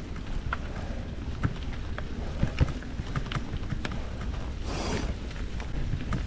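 Mountain bike rolling over a rough trail: a steady low rumble of tyres and wind on the microphone, with irregular clicks, knocks and rattles from the bike. A short rushing hiss about five seconds in.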